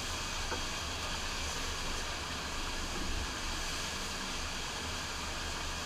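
Steady rush of water from a FlowRider surf machine's pumped sheet wave flowing up the ride surface, with a low rumble underneath.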